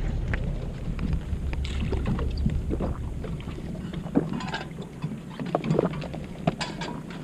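Steady low rumble of a small fishing boat under way, with water and wind noise; the rumble eases about halfway through. Scattered light knocks and clicks sound on deck over it.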